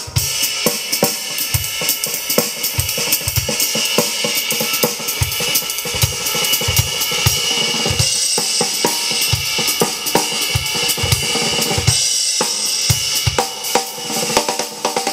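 A drum-kit test track with kick drum, snare, hi-hat and cymbals, played through a pair of LSM FR112M loudspeakers. The kick drum beats run in a steady pattern under constant cymbal wash.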